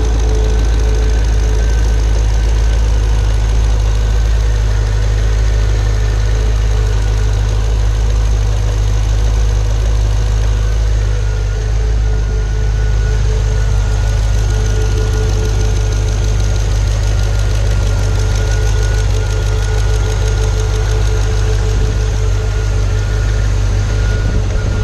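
Pontiac G8 GT's L76 6.0-litre V8 idling steadily with a fast, even lifter tick/knock, the sign of a failed Active Fuel Management (DOD) lifter.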